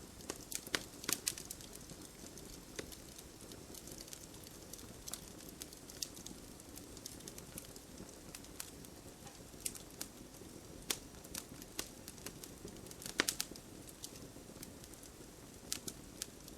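Campfire burning, with irregular sharp crackles and pops of the wood over a steady low rustle of the flames; small clusters of pops about a second in and again near the end.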